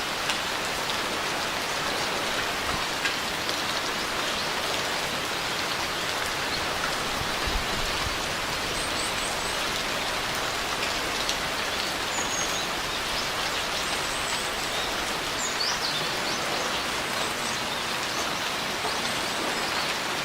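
Steady rain falling in an even, dense patter.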